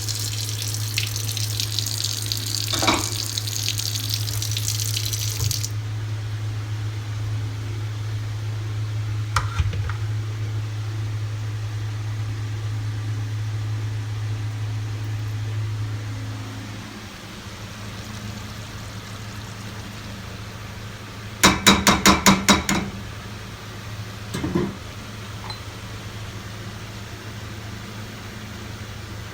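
Water running from a kitchen tap, shut off about six seconds in, over a steady low hum that fades out past the middle. Later comes a quick run of sharp, evenly spaced clicks, then a single small knock.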